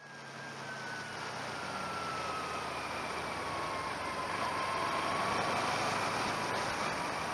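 Car driving at low speed, heard from inside the cabin: a steady engine hum and tyre noise, with a thin whine that falls in pitch over the first few seconds as the car slows, then levels off.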